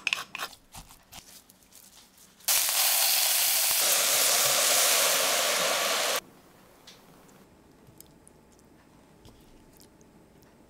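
Quick clicking of a pepper grinder over raw pork mince. Then a loud, steady sizzle of chopped onion, carrot and mushroom with red wine in a hot Dutch oven, which cuts off suddenly after nearly four seconds.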